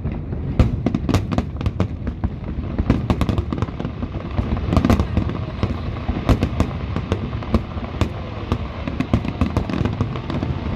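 Fireworks display: a rapid, unbroken barrage of sharp bangs and crackles over a constant low rumble.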